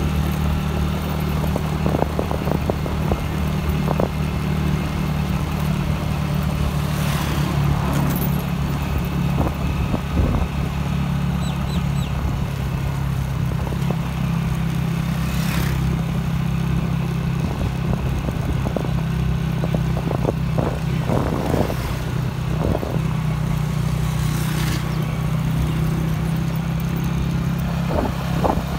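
Steady engine drone and road noise from a moving vehicle at cruising speed, with a few brief rushing whooshes.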